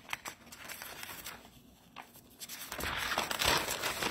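Sheets of lined paper rustling and crinkling as they are handled and swapped, with small clicks and a denser crackle over the last second or so.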